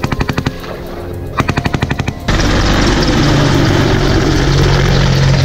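Two short bursts of rapid automatic gunfire about a second apart. Then, from about two seconds in, a low-flying AH-64 Apache attack helicopter passing close: loud, steady rotor and turbine noise with a steady low hum.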